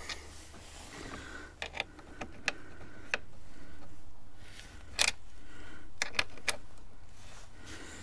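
Scattered sharp clicks and small taps of a hand tool working the screws on a motorcycle's plastic fairing, with the rustle of a jacket sleeve close to the microphone.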